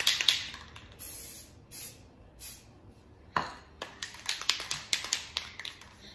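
Aerosol spray paint hissing out of a can in three short spurts, then a spray can being shaken, its mixing ball rattling in quick clicks.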